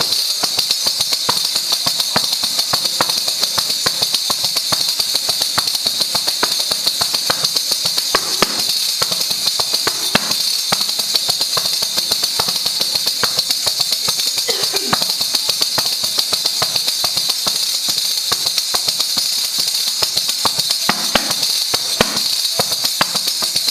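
Asturian pandereta, a frame drum with a hide head and metal jingles, played in a fast, steady rhythm of strokes with the jingles ringing continuously.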